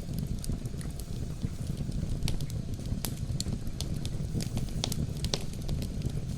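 Wood fire crackling with irregular sharp pops over a steady low rumble.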